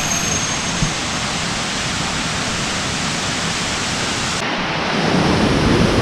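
Steady rushing noise of a waterfall, growing louder near the end as it comes closer.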